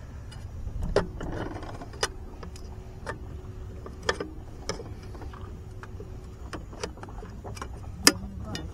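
Fishing gear on a bass boat clicking and knocking about six times at uneven intervals, over a low steady rumble, with a faint steady hum from about a second in until about six and a half seconds.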